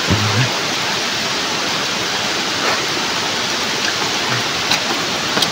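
Heavy rain falling: a steady, even rush with a few faint knocks.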